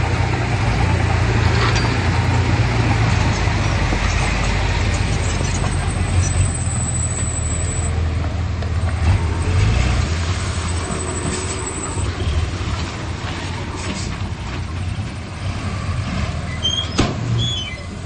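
Heavy diesel earthmoving machinery running under load, a steady deep engine rumble that eases off in the second half. A couple of short high squeaks come near the end.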